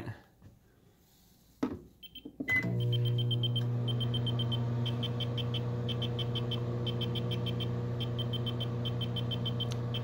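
A microwave oven is started with a few button clicks and a short beep about two and a half seconds in, then runs with a steady hum. Over the hum, the GQ EMF-390 meter beeps in quick bursts of several high beeps, sounding its alarm at the strong magnetic field in front of the running oven.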